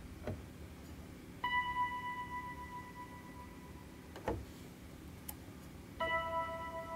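Sparse background music of single ringing, bell-like notes: one starts about a second and a half in and rings for a couple of seconds, and a lower one starts near the end. Two soft knocks fall between them.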